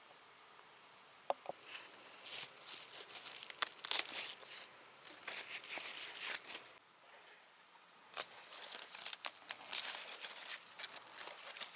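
Irregular crinkling and rustling, with a sharp click about a second in and a short lull about halfway through.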